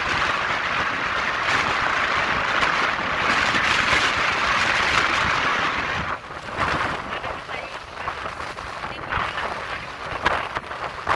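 Steady rushing of wind and water from a cruise boat under way. After about six seconds it turns rougher, with wind buffeting the microphone.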